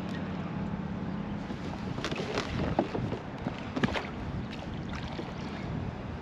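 Wind and water around a plastic fishing kayak, with a low hum that fades out after about a second and a half. Then a few knocks and thumps on the hull between about two and four seconds in, the loudest two about a second apart, as someone moves from standing to sitting in it.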